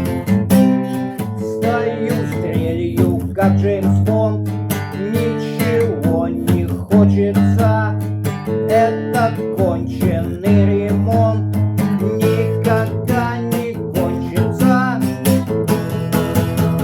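Acoustic guitar strummed in a steady rhythm, chords struck repeatedly.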